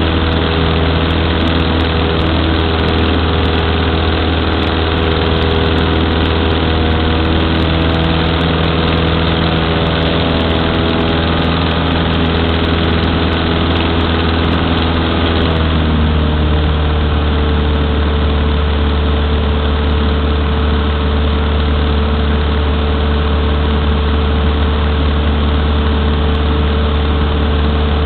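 Cessna 152's four-cylinder Lycoming O-235 engine and propeller droning steadily, heard inside the cockpit. About 15 seconds in, the engine note drops slightly in pitch and then holds steady.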